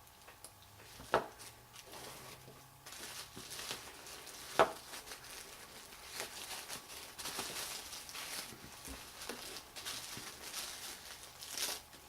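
Thin paper rustling and crinkling as a small gift wrapped in old tissue sewing-pattern paper is unwrapped by hand. Two sharp taps stand out, about a second in and again about four and a half seconds in, the second the louder.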